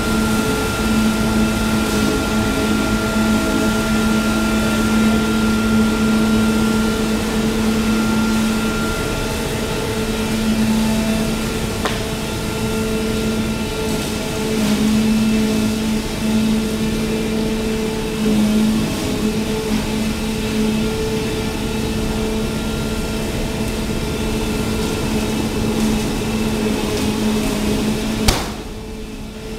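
Charcoal production line machinery running: a steady mechanical hum with a few constant pitched tones over a noisy drone. A sharp click near the end, after which the sound drops.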